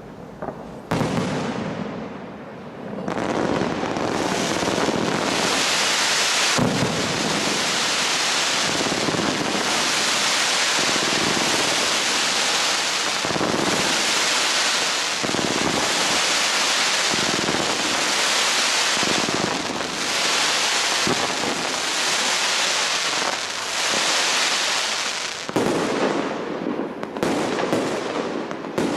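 Large professional fireworks display: a sharp bang about a second in, then a dense, steady hiss of many effects burning at once that swells and eases every second or two, and separate sharp cracks and pops near the end.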